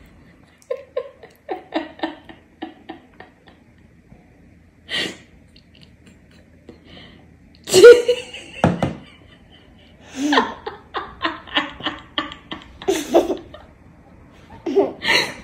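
Laughter in runs of short bursts, with short vocal sounds and breaths between them; the loudest burst comes about eight seconds in, followed closely by a dull thump.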